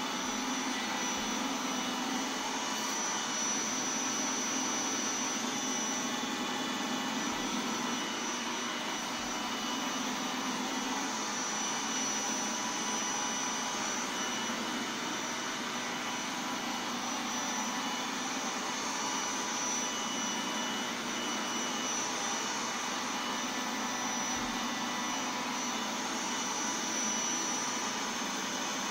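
Roomba 980 robot vacuum running steadily: a constant whirring hum with a high whine from its motor and brushes.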